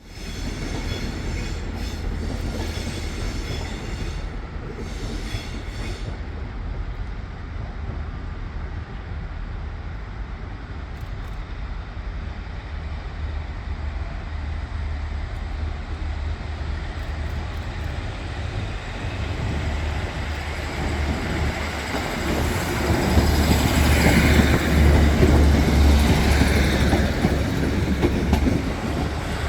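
A train running on the line: a steady low rumble that grows clearly louder about three-quarters of the way in.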